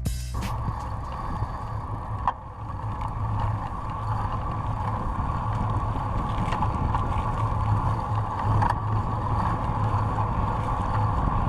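Passenger ferry running steadily under way, a constant low engine hum over rushing water and wind noise.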